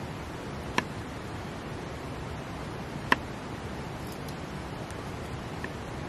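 Kitchen knife knocking on a wooden cutting board while slicing tomatoes: two sharp taps about two seconds apart and a fainter one near the end. Under them runs the steady rush of a waterfall.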